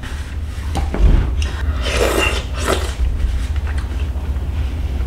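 Eating at a table: a few light clicks of a fork against a bowl and plate, and a breathy sniff or exhale about two seconds in, over a steady low hum.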